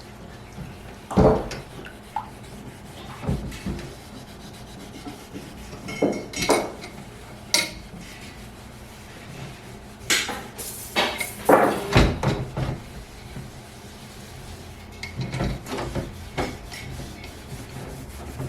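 Irregular knocks, clunks and rubbing as heavy objects are handled, with a busier cluster of knocks about two-thirds of the way through.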